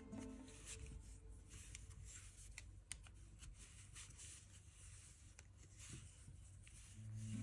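Faint rubbing of chunky yarn and a few light clicks of large wooden knitting needles as stitches are knitted and slipped over during a bind-off. Background music stops just after the start and comes back near the end.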